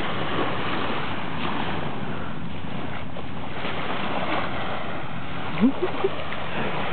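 Steady rushing outdoor noise of wind and water, with a short rising squeak or call about five and a half seconds in.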